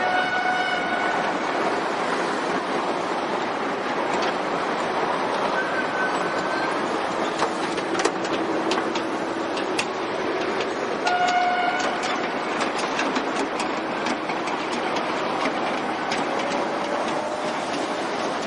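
Busy street traffic noise as a MAN F2000 tractor unit hauling a tanker semi-trailer passes slowly. A short horn-like tone sounds near the start and again about eleven seconds in, with scattered clanks in between.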